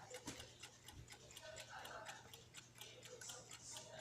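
Faint, rapid, evenly spaced ticking of a running mechanical clock, several ticks a second.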